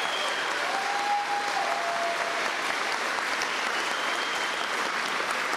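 Crowd applauding steadily, with a few cheers rising over the clapping.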